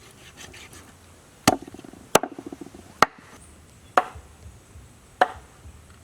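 Five hard chops of a heavy blade, such as a cleaver or machete, striking a wooden surface, spaced about a second apart. The first two strikes are each followed by a short rattling buzz, and a few light taps come before them.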